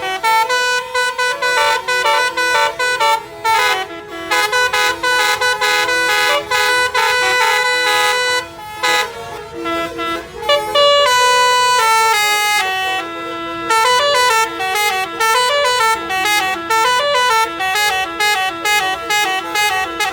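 Bus 'basuri' telolet horn, a multi-tone air horn, playing a fast tune of short stepped notes with a few longer held ones.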